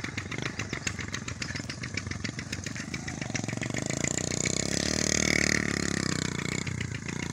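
Small motorcycle engine running steadily as the bike rides along a dirt track, its note swelling a little toward the middle.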